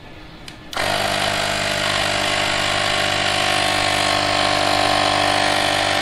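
Cordless rechargeable electric air compressor (tyre inflator) starting about a second in and then running steadily and quite loudly, pumping air into a car tyre toward its 250 kPa set pressure.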